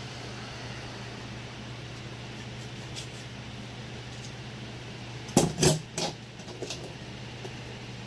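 A quick cluster of three sharp metallic clinks a little past halfway, as a V-band exhaust clamp is handled and set down on the workbench, over a steady low hum.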